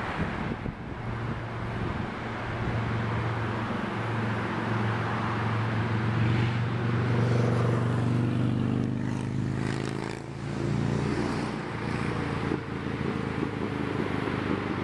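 A motor vehicle's engine running as it passes. Its hum builds to its loudest around seven or eight seconds in, then drops in pitch about ten seconds in, over a steady hiss of background noise.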